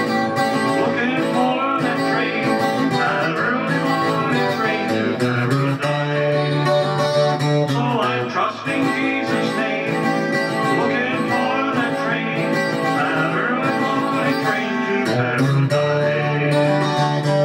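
Acoustic-electric guitar played as song accompaniment, with chords changing twice over a steady bass.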